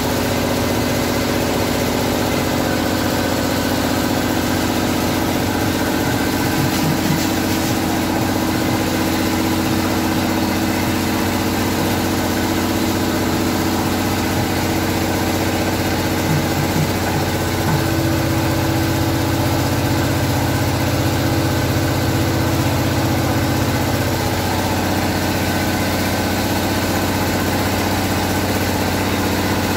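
An engine idling steadily, a low continuous hum whose note shifts slightly about three-quarters of the way through.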